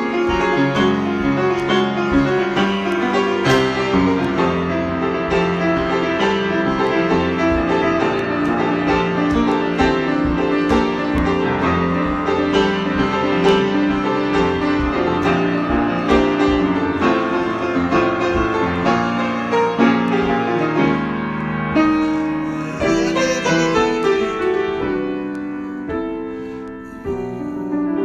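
Solo piano improvisation, many notes played continuously; it thins out and softens a little before the end, then picks up again.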